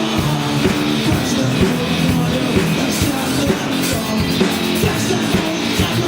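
A rock band playing live, with electric guitars, bass and a steady drum beat.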